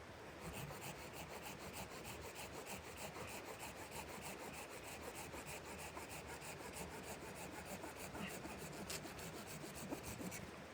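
Rapid, even rasping strokes, about six a second, kept up steadily, with one sharper knock about nine seconds in.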